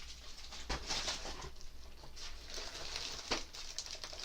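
Rustling and handling of the ring light kit's packaging and parts during unboxing, with two sharp clicks, one early and one about three seconds in.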